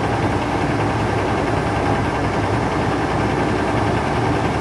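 Kenworth W900 semi truck's Cummins ISX 550 inline-six diesel idling steadily.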